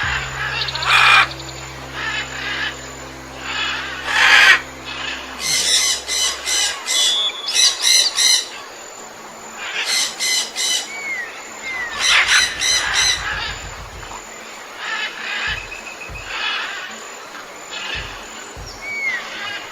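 Birds calling: clusters of harsh, repeated squawks, busiest a few seconds in, with a few short rising chirps later. A low steady hum sits under the first several seconds and stops.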